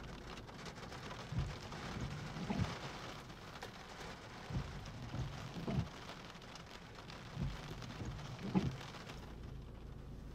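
Steady hiss of heavy thunderstorm rain, with short low thumps every second or so.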